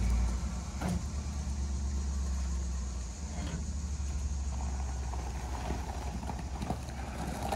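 Pickup truck engine idling with a steady low rumble.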